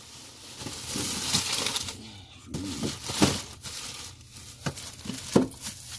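Plastic bags crinkling and rustling as vegetables are rummaged through in a refrigerator's crisper drawer, with a couple of sharper bumps later on.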